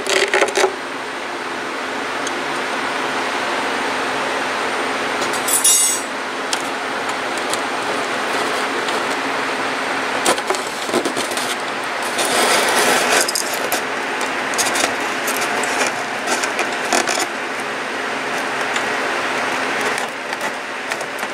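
Steady background hum with scattered light clicks and knocks of metal feeding tongs handled against a plastic insect enclosure. A sharp click comes about five seconds in, and a longer rustle about twelve seconds in.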